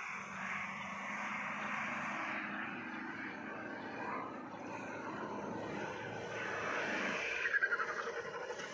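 Maruti Suzuki Baleno hatchback's engine running at high revs as the car climbs a steep sand dune, growing louder as it nears the crest, with a fluttering surge near the end.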